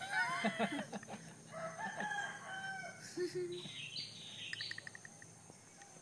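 Birds calling: several gliding, wavering calls in quick succession, then shorter, higher chirps.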